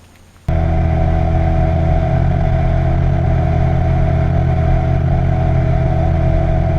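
Outboard motor running at a steady cruising speed, cutting in abruptly about half a second in.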